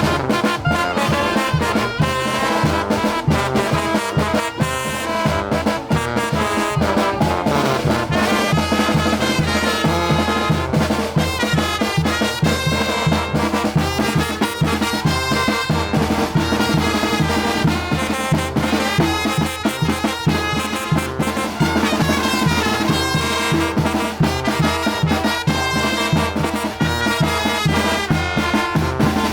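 Mexican brass band (banda de viento) playing a chilena: trumpets and trombones carry the tune over a steady, even bass beat.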